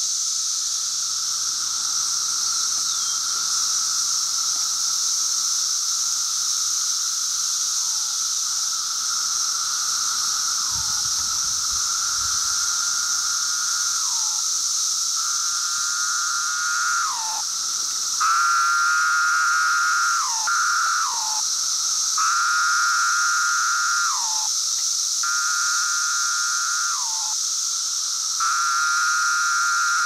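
Brood X periodical cicadas: a steady high-pitched chorus throughout. From about halfway through, a nearby cicada calls repeatedly, each call a held buzz about one to two seconds long that drops in pitch at the end, coming about every three seconds and louder in the second half.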